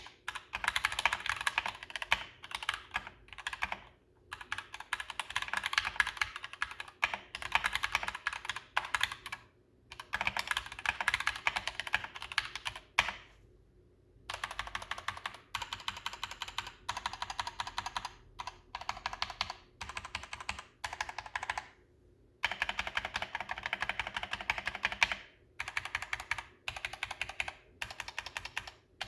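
DeepCool KG722 65% mechanical keyboard with Gateron Red linear switches in a plastic case, typed on fast: dense runs of key clacks broken by several short pauses.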